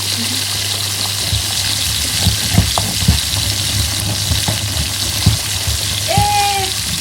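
Food frying in hot oil in a pan, a steady sizzle, with scattered light knocks of utensils.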